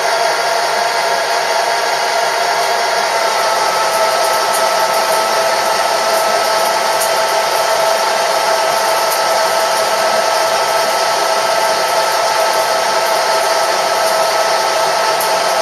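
Metalworking machine tool running steadily: a motor and gear whine over an even rushing noise, with faint light clicks now and then.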